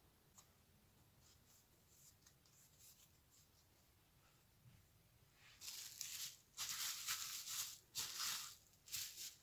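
Plastic cling film crinkling and rustling as it is spread and pressed over balls of dough, in several loud bursts over the last four seconds, after a few faint taps of the dough being handled.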